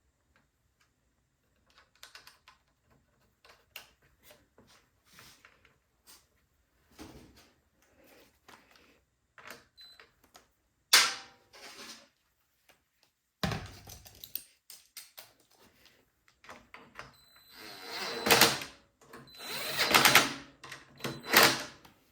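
Tools and metal parts clicking and clattering as nuts are fitted while a snowblower is put back together, with a sharp knock about halfway through and longer, louder bursts of rattling near the end.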